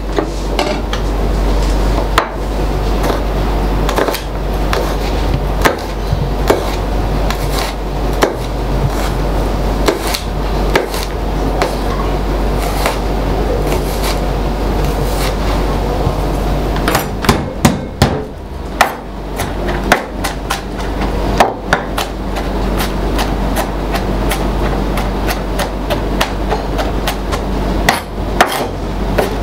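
Kitchen knife slicing and chopping garlic cloves on a plastic cutting board: irregular sharp knocks of the blade against the board, some in quick runs.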